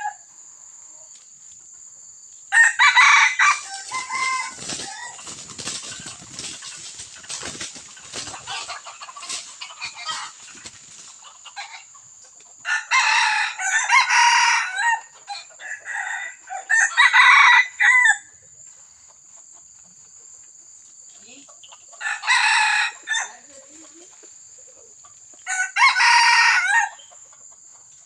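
Red junglefowl rooster crowing repeatedly, about six short crows spaced a few seconds apart, two of them close together about halfway through. Between the first crows comes a stretch of dry-leaf crackling and rustling.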